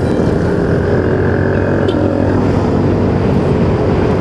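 Yamaha Mio i 125 scooter's single-cylinder four-stroke engine running steadily at cruising speed, with wind and road noise from the ride.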